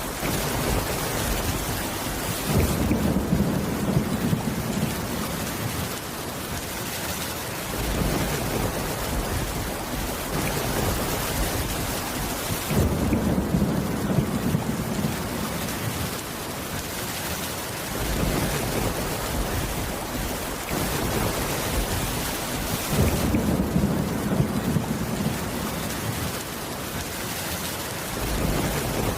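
Steady heavy rain with low thunder rumbles. Three rumbles come about ten seconds apart, each lasting around five seconds.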